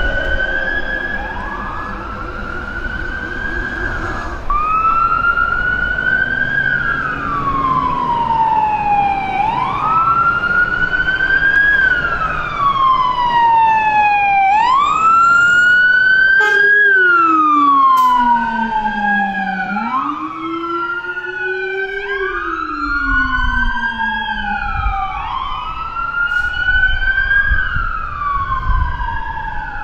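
Fire truck sirens on the wail setting, each sweep rising quickly and falling slowly, one every two to three seconds. Past the middle a much deeper tone sweeps along with the wail for a few seconds, and toward the end a second wail siren sounds out of step with the first, over a low diesel truck engine.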